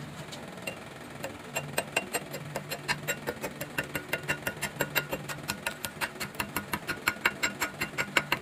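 Chipping hammer rapidly tapping slag off a freshly laid stick-weld fillet bead on a steel T-joint, about five sharp metal-on-metal taps a second, starting about a second in and getting louder toward the end. A low steady hum runs underneath.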